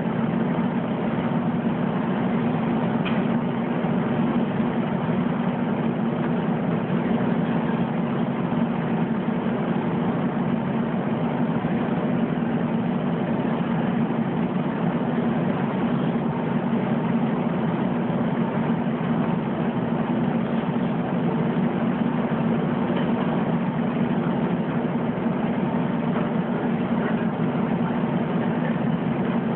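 Washing machines running with a steady low hum that does not change.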